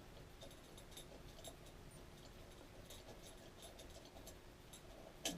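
Near silence with faint, scattered small clicks of parts and hardware being handled, and one sharper click near the end.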